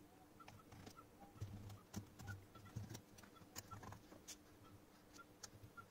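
Near silence: faint scattered clicks and light taps, with short faint chirps recurring every half second or so.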